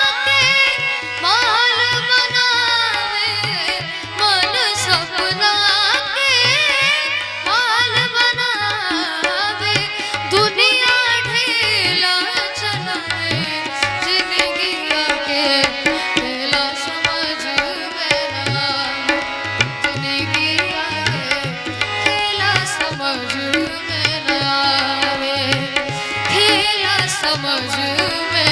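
Live band music for a Bhojpuri song: an instrumental interlude with a wavering melodic lead over a steady, fast drum rhythm.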